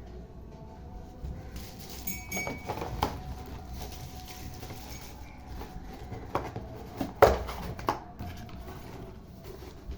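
Scattered knocks and clicks of objects being handled, irregular and a few seconds apart, the loudest about seven seconds in.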